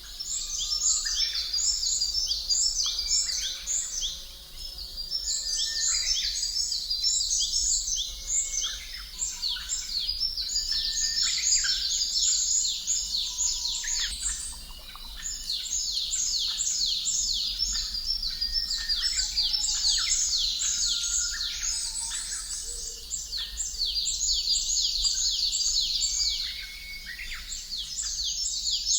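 Dense chorus of many small birds chirping, with quick high falling chirps overlapping one another without pause.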